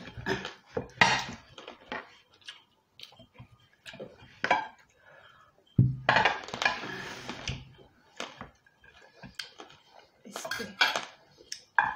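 Knife and fork clinking and scraping on ceramic plates while food is cut and eaten, a string of short irregular clicks. About six seconds in comes a sudden thump followed by a second or so of rustling noise.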